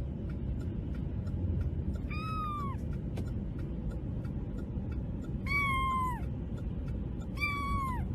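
A kitten meowing three times, high-pitched calls that drop in pitch at the end, over a steady low rumble.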